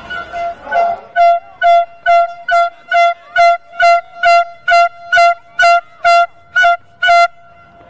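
A rapid run of about fifteen identical short, high beeps, a little over two a second, each at the same steady pitch, then it stops.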